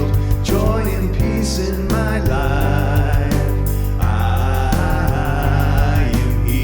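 A live song with a voice singing over band accompaniment: a sustained bass and a steady beat of cymbal ticks.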